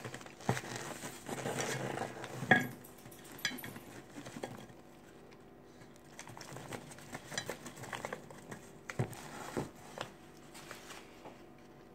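Baked cornstarch chunks being picked over on a plate and pulled from a torn paper box, making scattered small clicks and knocks with some paper crinkling. The loudest knock comes about two and a half seconds in.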